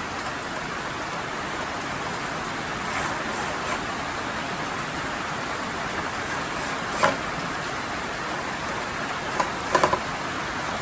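Heavy rain falling steadily. A sharp click about seven seconds in, and a quick cluster of clicks near the end.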